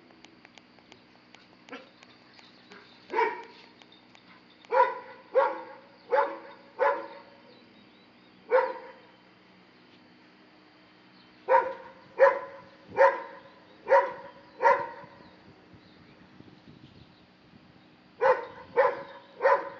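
A Dobermann barking at a monkey in three bouts of single, separate barks: about six, then five, then three, roughly half a second to a second apart, with pauses of a few seconds between the bouts.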